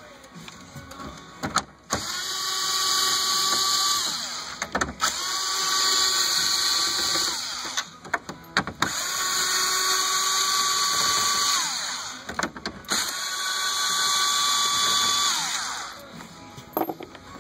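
Cordless power driver run in four bursts of two to three seconds, its motor whining steadily and falling in pitch as each burst winds down, backing out the 7 mm screws that hold the radio. Short clicks and knocks fall between the bursts.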